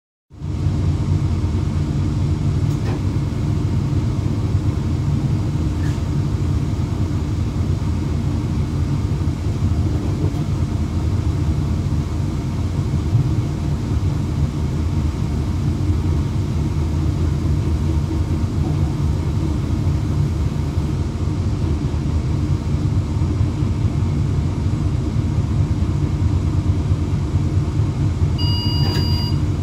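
Steady low rumble inside a train's driver's cab running at about 130 km/h. A brief electronic beep sounds near the end.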